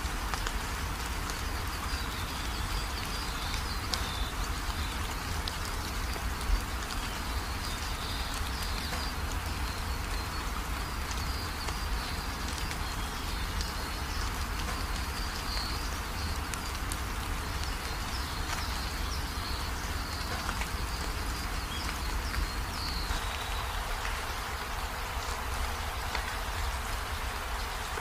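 Steady rain: an even hiss of falling water with scattered small drop ticks, and faint high chirps that come and go through most of it.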